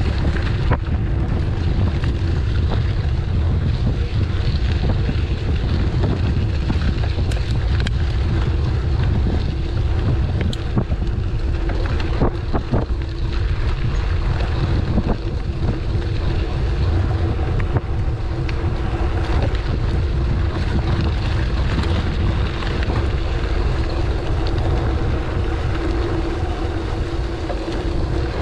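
Wind buffeting the microphone of a camera riding along on a moving bicycle: a steady low rumble with a faint constant hum and a few light knocks about halfway through.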